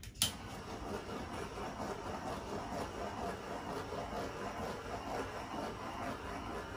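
Small handheld gas torch clicking alight, then its flame hissing steadily as it is swept over wet acrylic pour paint.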